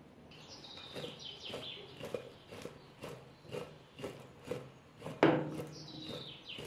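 Raw cauliflower florets tossed in a glass mixing bowl, thudding and rattling against the glass about twice a second as the bowl is shaken, with one louder knock about five seconds in.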